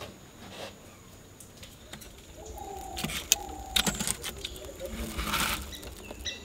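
Sticks of firewood knocking together as they are pushed into a wood fire, a cluster of sharp clicks about halfway through, followed by a short rushing noise. A bird calls in the background.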